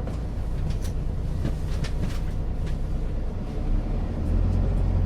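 Bus engine heard from inside the cabin as the bus pulls away from a stop: a steady low drone that grows louder and deeper about four seconds in, with a few light clicks and rattles from the cabin.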